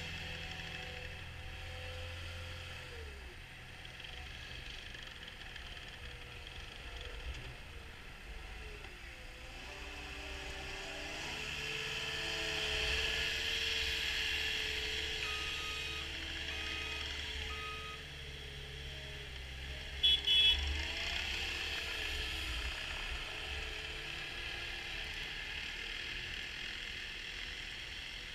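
Caterpillar 259D compact track loader's diesel engine running as the machine drives off over snow, its note rising and falling as it moves and growing fainter as it goes. Three short faint beeps come around the middle, and a brief loud clatter about two-thirds of the way in.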